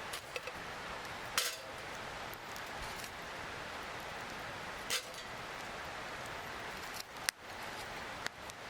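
Four sharp, separate clinks of metal camp cookware and utensils over a steady hiss.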